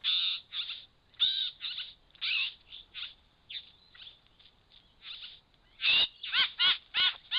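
Satin bowerbird calling at its bower: a string of short, harsh calls, scattered at first, then coming quicker, about three a second, near the end.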